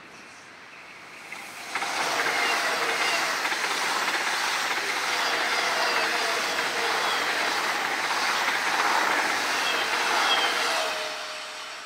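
SBB ICN tilting electric train, two units coupled, passing close at speed. A rush of wheels on rail and air swells in suddenly about two seconds in, holds steady with a faint whine, then falls away near the end.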